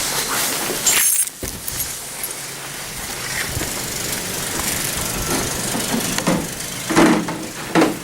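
Snowstorm wind rushing over the microphone: a steady noise that briefly drops away about a second in and surges again near the end.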